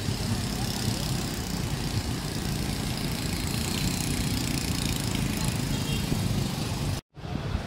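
Steady low engine rumble of motor traffic, running without change. The sound cuts out for a split second about seven seconds in, then resumes.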